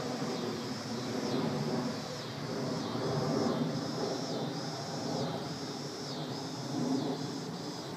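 Electric-powered E-flite P-47 Thunderbolt RC warbird droning from high overhead. A steady high-pitched buzz runs over it and dips briefly about once a second.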